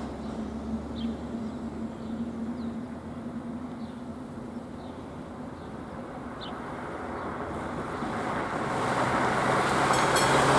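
Road traffic noise with a low engine hum, then a car's engine and tyres growing louder over the last few seconds as it drives up over the level crossing.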